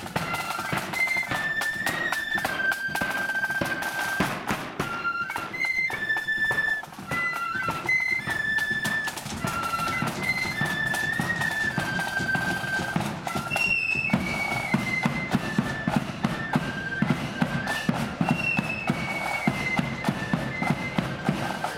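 Marching flute band playing a tune: the flutes carry a stepping melody together over snare drums and a bass drum beating steady time. From about two-thirds of the way through the drum strokes come through louder and sharper.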